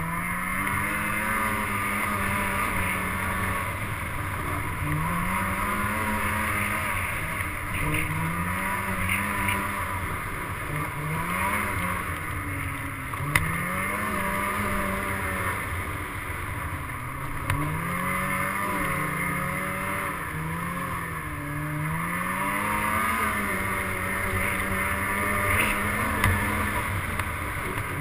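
Off-road vehicle engine revving up and dropping back again and again as the throttle is worked, a rise and fall about every two seconds, over a steady rumble and the rush of travel.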